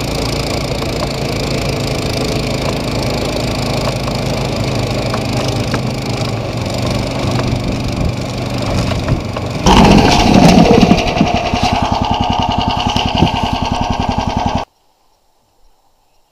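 SnowDog tracked snow machine's small gas engine running steadily while towing a sled over snow, with many small ticks. About ten seconds in it grows louder with a fast pulsing beat, then the sound cuts off abruptly into near silence.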